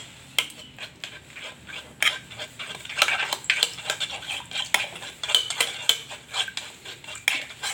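A spoon stirring and clinking irregularly against the side of a container, mixing a runny syrup of onion and lemon juice, oil, honey and ginger.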